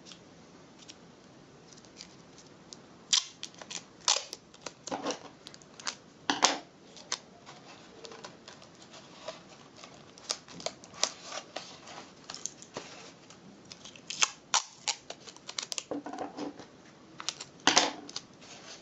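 Clear sticky tape pulled off its roll and wrapped around the joint of cardboard toilet-paper tubes, with irregular crackles and clicks of tape and cardboard being handled.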